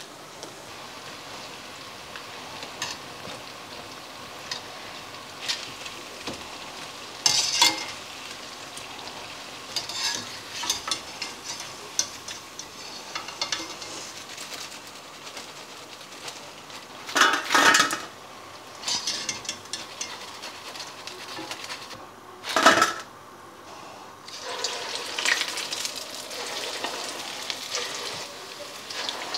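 Medu vadas deep-frying in hot oil: a steady sizzle, with a metal wire skimmer clinking and scraping against the pan and a few louder clatters. About five seconds before the end the sizzle grows busier as fresh batter goes into the oil.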